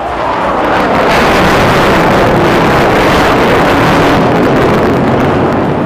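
HAL Tejas jet fighter's turbofan engine, a loud, steady rush of jet noise as the aircraft pulls up into a vertical climb, building over the first second and then holding.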